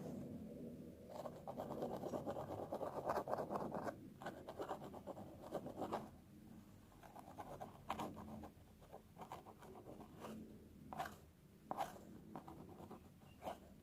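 Fingernails scratching through hair on a scalp, close up: a dense run of quick scratching strokes in the first half, then slower, separate scratches with small clicks.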